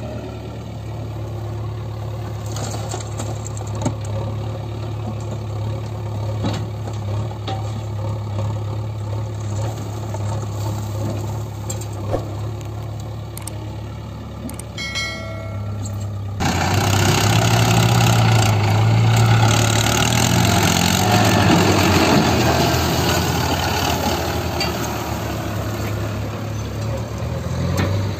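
Diesel engines of a Mahindra Arjun 555 tractor and a JCB backhoe loader running steadily. A little past halfway it turns suddenly louder and rougher as the tractor pulls its fully loaded soil trolley away.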